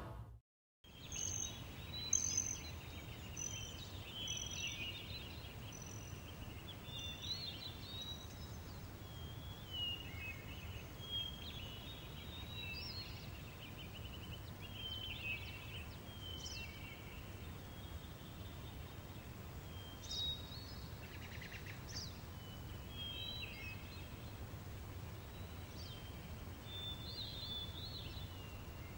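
Daytime countryside ambience: many small birds chirping and trilling on and off over a steady low rumble of breeze.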